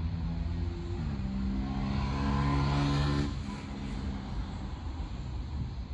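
A motor vehicle's engine driving past. Its engine note steps up in pitch about a second in, grows loudest about three seconds in, then fades away.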